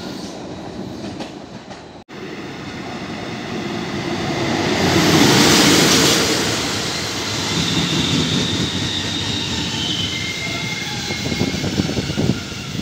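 Trains running through stations. An electric multiple unit rolls in for about two seconds, then an abrupt cut leads to a rake of TRI passenger coaches running past. Their wheels make a rush on the rails that swells to a peak about five to six seconds in, then carries on with thin high wheel squeals and clattering over rail joints near the end.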